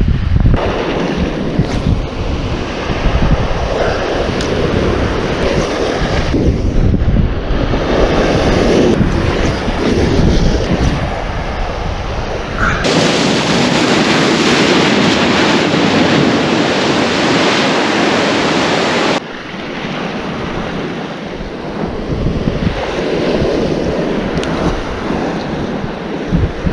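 Surf breaking and washing over a rock shoreline, with wind buffeting the microphone. For about six seconds in the middle, the wind rumble cuts out abruptly and only an even surf hiss is left, before the rumble returns.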